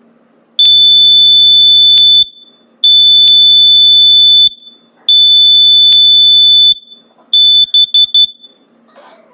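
Kidde KN-COEG-3 carbon monoxide and explosive gas alarm sounding its test: three long, loud, high-pitched beeps of about a second and a half each, then a quick run of short beeps near the end.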